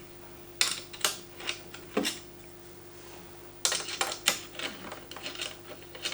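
Small hard parts and tools being handled and set down on a table: scattered light clicks and clatter, a few spaced out at first, then a quicker run of them about halfway through.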